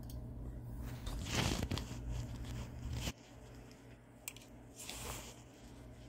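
Handling noise close to the microphone: a scraping, rustling swish about a second and a half in, a light click, then a second swish near five seconds. A low steady hum underneath cuts off suddenly about three seconds in.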